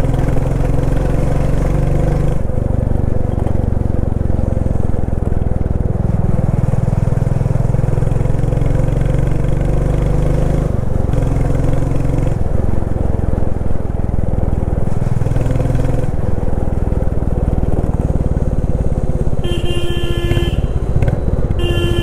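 Royal Enfield Classic 350's single-cylinder engine thumping through its exhaust on the move, its pitch stepping up and down with throttle and gear changes. Near the end a horn sounds briefly, then again.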